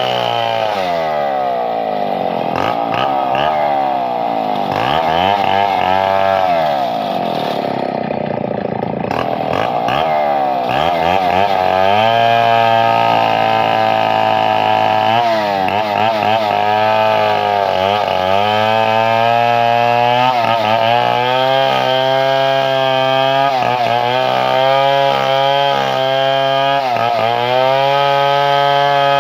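A two-stroke chainsaw runs at high revs, cutting wood. Its engine pitch sags and recovers over and over as the bar bites and eases off. For the first ten seconds or so the pitch swings widely, then it holds high with brief dips.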